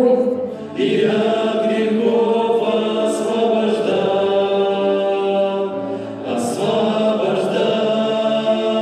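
A male vocal quartet sings in close harmony, holding long chords. It starts about a second in, after a brief snatch of a woman's singing.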